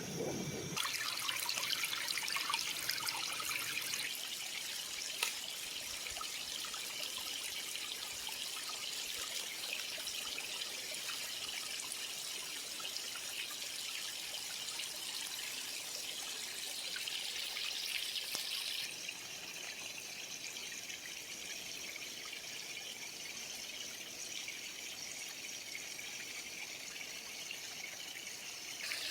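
Creek water trickling steadily over stones. The sound shifts abruptly about a second in and again about two-thirds of the way through.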